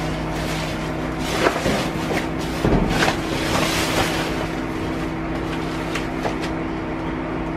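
Steady low hum of an idling vehicle engine, with scattered knocks, clatter and rustling of items being moved and handled.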